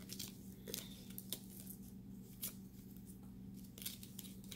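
Cardboard-and-plastic packaging of a makeup palette being peeled and torn open by hand: faint, irregular crinkles and small rips a second or so apart, over a steady low hum.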